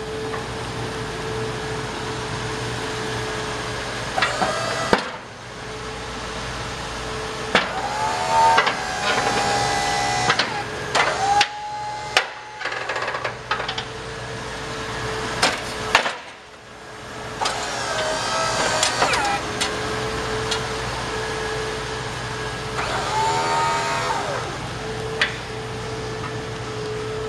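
Electric-hydraulic pump motor of a Western MVP V-plow running as the blade wings are swung between positions, stopping briefly a few times. Sharp clicks and several short squeals come through as the blade moves.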